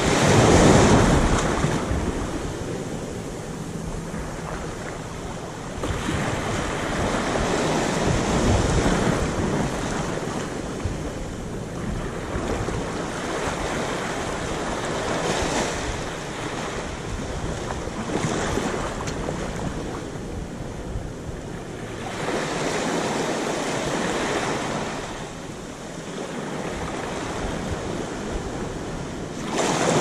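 Small waves lapping onto a sandy beach, each one washing up the sand and draining back, in surges every few seconds. The loudest wash comes just after the start.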